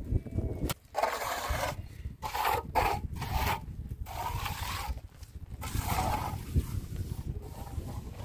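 A hand trowel scraping wet cement render across a cinder-block wall in several separate strokes, each lasting up to about a second.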